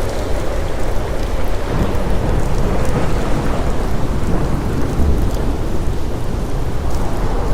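Steady rain, with a deep continuous rumble underneath.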